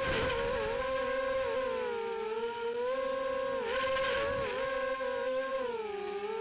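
Brushless motors and propellers of a Flip 260 quadcopter whining, heard from the camera on board. The pitch wavers up and down with the throttle, with quick dips and a short rush of air as the quad flips over near the start and again about four seconds in.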